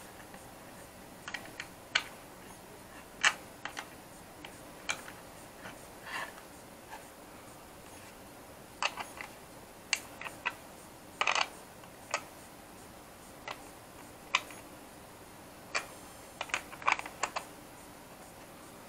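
Irregular sharp clicks and taps of small parts being handled: a brass antenna connector, its nut and washer being fitted and adjusted in a hard plastic drone remote-controller shell. One slightly longer clatter comes about eleven seconds in.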